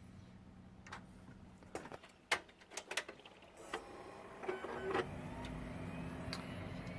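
Sharp plastic clicks and knocks as a RAM stick and its retaining clips are pressed and handled in a desktop PC. About five seconds in the computer powers on and its fans start a steady hum.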